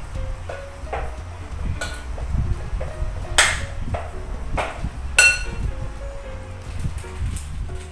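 Light clinks of dishware against a stainless steel steamer as siomai are set onto its tray, the two loudest about three and a half and five seconds in, the second ringing briefly. Background music plays under it.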